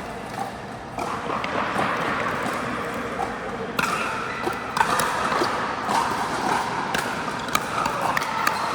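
Pickleball paddles striking the plastic ball during a rally: sharp pocks at uneven intervals, thickening after about four seconds, over a steady background din from the hall.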